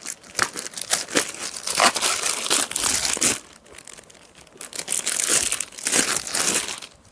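Plastic saree packaging crinkling and rustling as a saree is handled and slid out of its packet, in two spells with a short lull in the middle.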